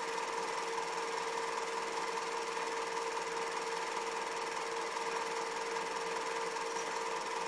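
Super 8 film projector running: a steady mechanical whir with a constant hum that does not change.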